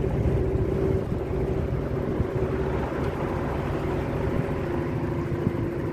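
Suzuki DF2.5 four-stroke outboard motor running steadily under way on a small aluminium boat, a continuous rumble with a steady hum.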